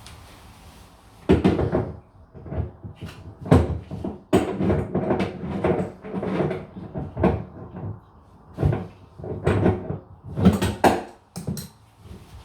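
A run of knocks, bangs and rattles from things being handled and moved about, starting about a second in and stopping near the end.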